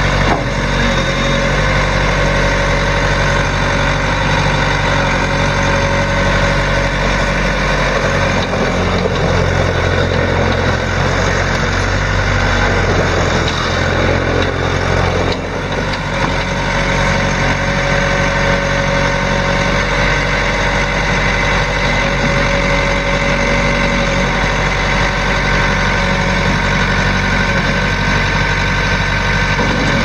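Case 4-390 four-cylinder diesel engine of a 1988 Case 1845C skid steer running steadily, its note changing for a stretch in the middle before settling back.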